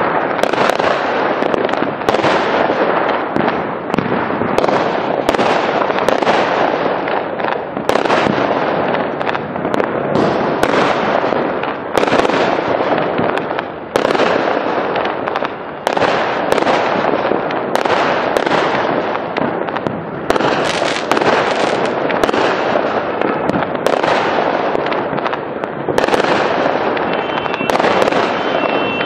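Fireworks going off without pause: a sharp bang every second or two, each fading away, over a constant din of further explosions.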